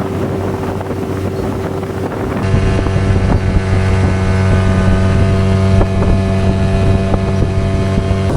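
Motorboat engine running at a steady speed over wind on the microphone, its hum growing louder and fuller about two and a half seconds in.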